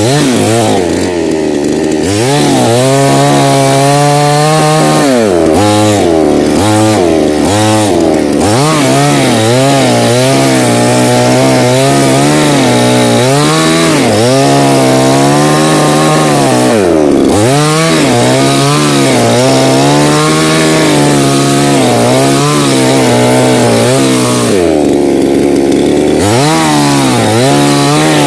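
Chainsaw cutting wood, its engine note rising and falling again and again, with several deep drops in pitch.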